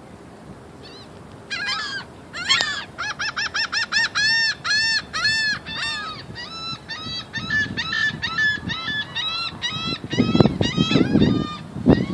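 A bird calling in a long rapid series of short, arched, honking notes, about three to four a second at its quickest. Near the end a louder burst of low noise comes in under the last calls.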